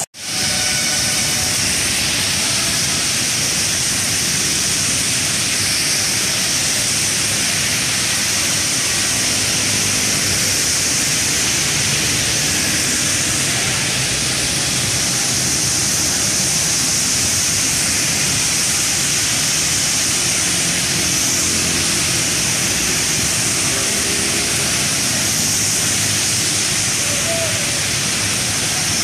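Heavy rain falling in a steady hiss, mixed with the hiss of traffic driving along a wet, waterlogged road.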